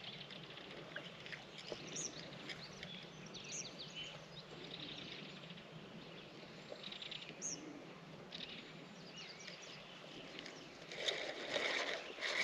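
Wild birds chirping and calling, many short high notes and a few falling whistles overlapping. Near the end, a louder rustling noise comes in.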